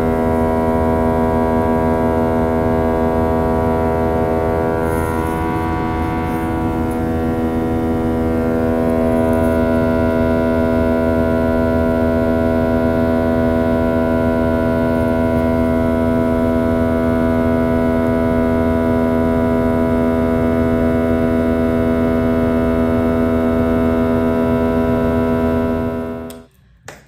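Steady, loud engine drone of an airliner heard inside the cabin: an unchanging hum over a low rumble. It cuts off suddenly near the end.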